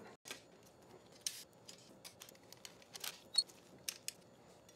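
Faint, scattered small clicks and taps of chainring bolts being fitted by hand into the chainrings of a bicycle crankset.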